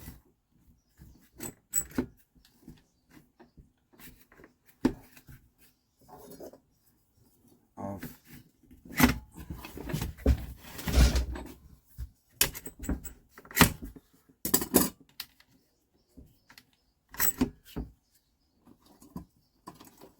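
Handling of metal workshop tools: scattered clicks, knocks and light clattering, with a few busier stretches of rattling in the middle. No machine is running.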